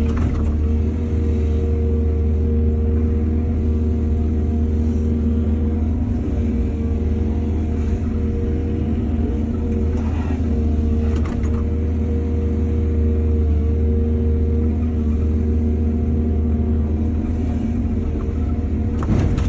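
Excavator diesel engine running steadily, with a few brief knocks and clatters, twice near the middle and once near the end.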